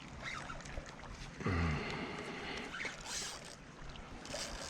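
Shoreline water washing and splashing, with scattered rustling and short bursts of higher noise, and a brief low pitched sound about one and a half seconds in.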